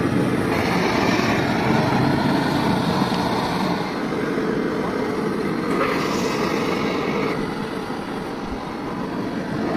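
Steady rumble of passing vehicle traffic, with a brighter hiss rising twice for a second or so.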